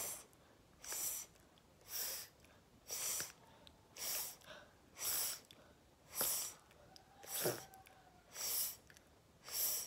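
A woman repeating a voiceless hissing consonant in an articulation drill: ten short hisses of breath forced through the teeth, about one a second, with no voice behind them.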